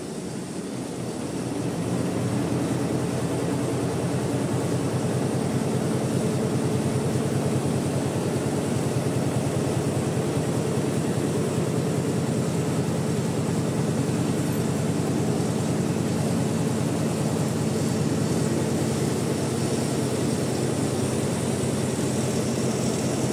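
Richpeace multi-head embroidery machine running, its needles stitching quilted saddle pads with a fast, even mechanical rhythm. It grows louder over the first two seconds, then holds steady.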